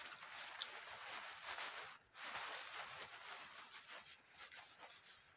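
Faint chewing of crispy fried chicken, a rough crunching noise that stops briefly about two seconds in, then resumes and fades.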